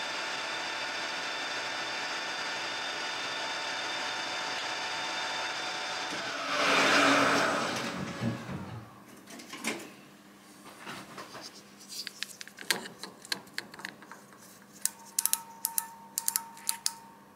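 Colchester metal lathe running steadily while turning a brass bar, then a loud rush about six and a half seconds in as it is stopped, with the sound falling away over about two seconds. After that come light clicks and taps as the part is handled and checked with a micrometer, with a quick run of sharp clicks near the end.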